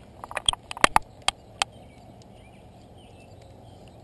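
Sharp clicks and knocks of a drinks cooler being rummaged through, a quick run in the first second and a half, then only a steady low outdoor background.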